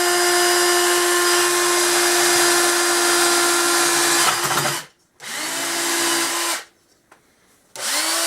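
Makita 18-volt cordless drill running on its low speed setting in drill mode: one long run of about five seconds, then two shorter bursts about a second and a half each, each starting with a quick rising whine as the motor spins up.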